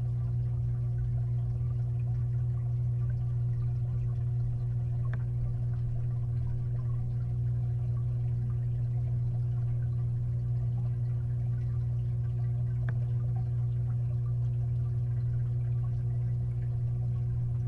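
Steady low hum of a 55-gallon fish tank's running filter, heard underwater from inside the tank, with two faint ticks.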